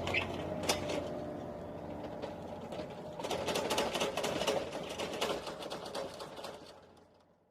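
Rapid mechanical clattering: a fast, even run of clicks over a steady hum, fading out near the end.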